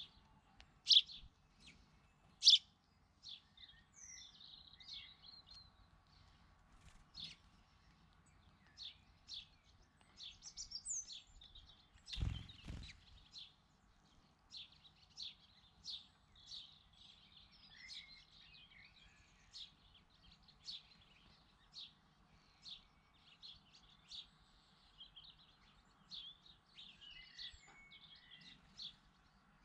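Small birds chirping, short high calls repeated every half second to a second, the two loudest about one and two and a half seconds in. A brief low rumble about twelve seconds in.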